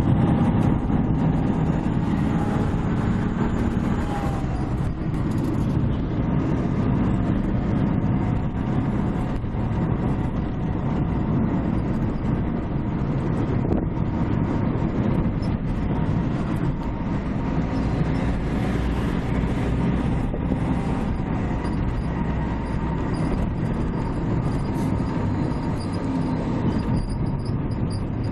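Steady engine and road noise heard from inside a moving vehicle as it drives through city streets, mostly low and unbroken.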